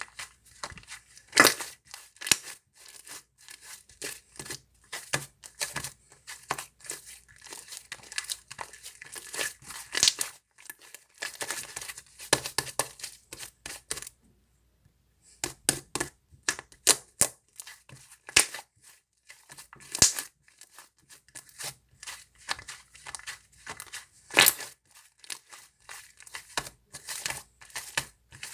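Cream slime being squeezed, folded and stretched by hand, giving dense irregular clicks and pops of trapped air bubbles. The sounds stop for about a second roughly halfway through, then resume.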